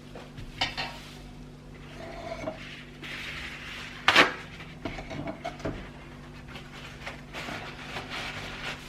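Clinks and knocks of hard items being handled, like dishes or packaged goods, with one louder knock about four seconds in, over a steady low electrical hum.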